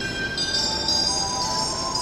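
Station platform melody chime over the PA: a short tune of bell-like electronic notes, with new notes coming in about half a second and a second in.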